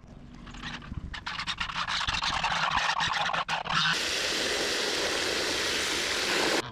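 A jet of water from a garden hose nozzle pours into a plastic tub full of chopped lettuce with a steady splashing hiss, starting abruptly about four seconds in. Before that there is rustling with scattered small knocks as the tub of lettuce is handled.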